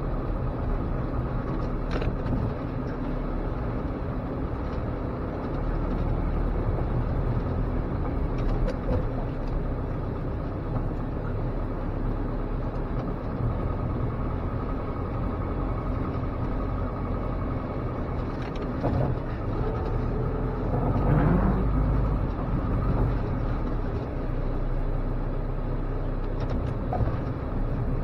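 A 1987 Dodge Raider's carbureted 2.6-litre four-cylinder engine running as the truck drives, heard from inside the cab with scattered knocks and rattles. The engine revs up briefly about three-quarters of the way through.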